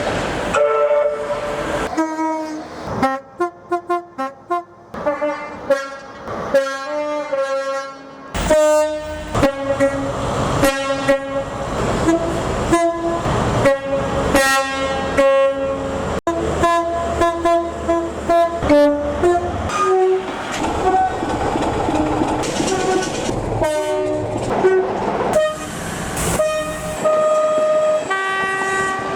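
Two-tone horns on British locomotives sounded in quick rhythmic sequences of short toots, switching between a low and a high note to play tunes. The horn sequences come from several different trains, with the noise of a passing train in between.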